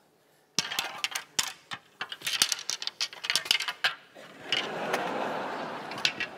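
Snooker balls clicking and clattering in a quick, irregular run of sharp clicks that lasts about three seconds, followed by a couple of seconds of audience noise.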